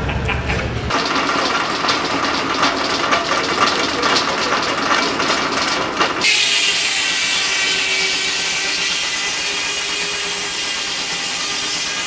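Old circular sawmill driven by a steam tractor, at work cutting timber. Dense clattering and knocking at first, then from about six seconds in a steady high hiss over a faint steady hum.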